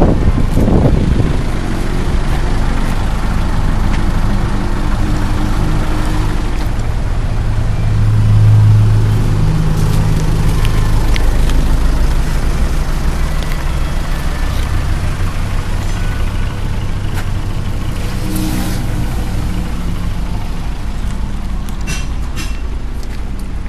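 A large engine running with a low, steady hum that swells louder about eight seconds in, with a few light clicks near the end.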